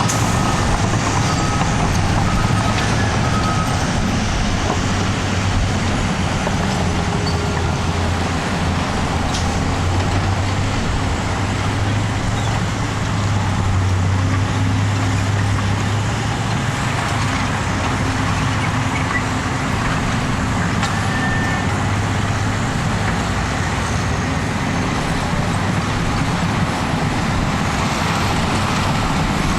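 Caterpillar D6T bulldozer's diesel engine running steadily while the dozer works. A reversing alarm beeps repeatedly for the first few seconds.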